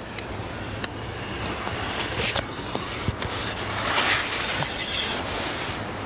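Hand suction pump (a plunger-type bait pump) sucking water and wet sand up out of a spoon worm burrow on a tidal flat: a noisy hiss with scattered clicks, loudest about four seconds in.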